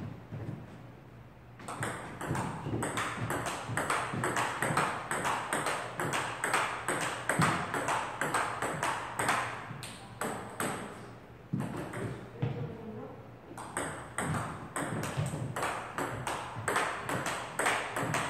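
Table-tennis rally: the ball clicking sharply off the rubber bats and the tabletop in quick alternation, about three or four hits a second. The hits start a couple of seconds in and pause for about a second midway between rallies.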